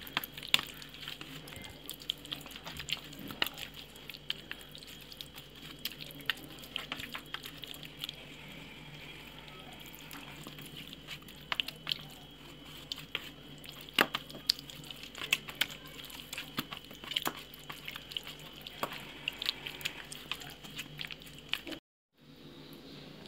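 Hands rubbing a thick curd-and-lemon masala marinade into raw chicken in a steel plate: wet squelching and smacking with irregular sharp clicks as fingers hit the metal, over a steady low hum.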